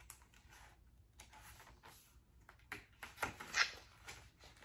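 Paper pages of a large picture book rustling as they are handled and turned, in a few short rustles with the loudest about three and a half seconds in.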